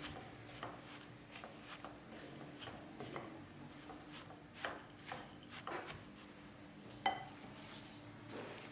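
Mixing utensil scraping and knocking against a bowl while crumbly oat cookie dough is stirred, in irregular soft strokes, with one sharper clink about seven seconds in.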